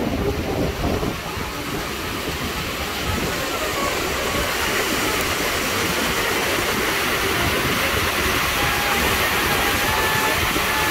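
Red stern paddlewheel of a riverboat churning the river water, a steady rushing splash over a low rumble. The rush grows louder and brighter a few seconds in.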